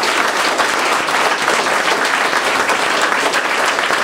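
An audience applauding: many people clapping at once, holding a steady level.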